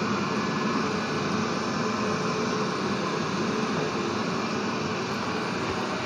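360 S7 robot vacuum cleaner running: a steady whirr from its motor as it cleans the floor.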